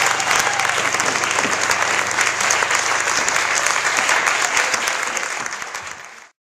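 Audience applauding with many hands clapping together, fading out and stopping near the end.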